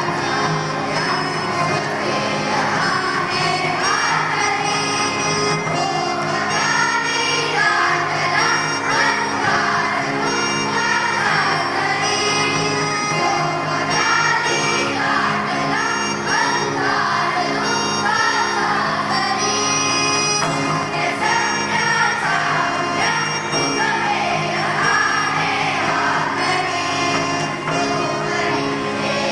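Children's school choir singing a Marathi song together, accompanied by tabla.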